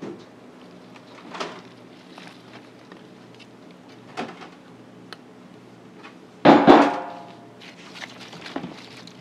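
Scattered knocks and thuds of a knife and gloved hand working smoked pork in a plastic crate, with one much louder clattering knock about six and a half seconds in, over a steady low hum.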